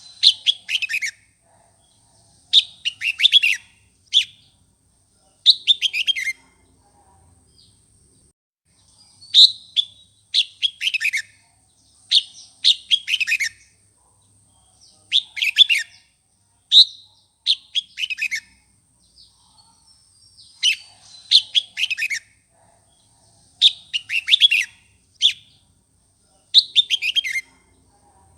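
Red-whiskered bulbul singing: short, fiery phrases of quick notes that fall in pitch, repeated about every two seconds. This is the aggressive song used to provoke newly caught wild bulbuls into singing back.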